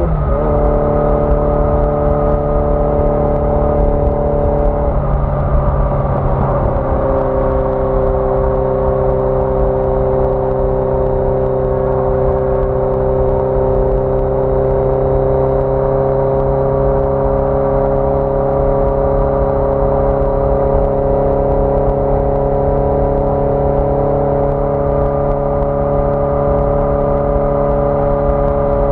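A 1981 Yamaha XJ650 Maxim's air-cooled inline-four engine running under way. Its pitch drops sharply just at the start and falls again about five seconds in, then holds steady and creeps slowly upward as the bike cruises.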